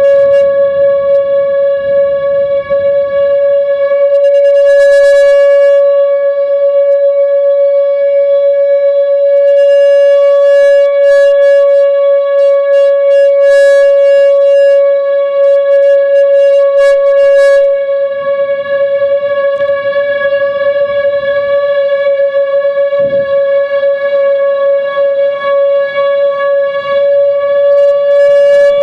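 Whelen WPS 2906 electronic outdoor warning siren sounding a steady, unwavering tone during a siren test, loud and close.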